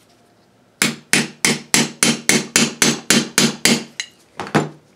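Hammer striking a steel socket extension used as a drift, driving a ball bearing into a heated aluminium engine crankcase: about eleven quick taps at roughly four a second, then a short pause and two more taps near the end to seat the bearing fully.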